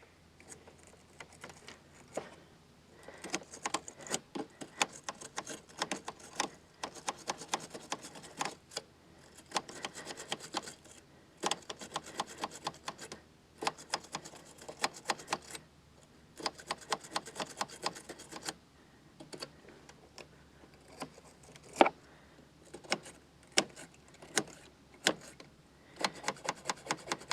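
Battery post and terminal cleaner brush scraping and twisting on lead battery posts and cable clamps, in quick clusters of short metallic strokes, several a second, with brief pauses between.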